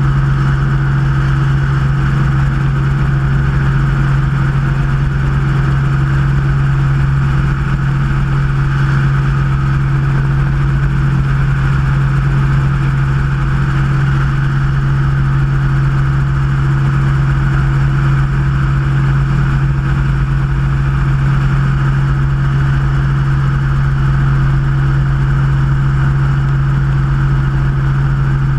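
Helicopter in steady cruising flight: the constant drone of its rotor and engine, heard close up from a camera mounted on the outside of the aircraft.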